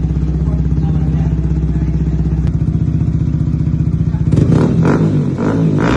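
Yamaha R15M's single-cylinder engine idling steadily through an Akrapovic full-system exhaust, then revved in a few quick blips a little over four seconds in.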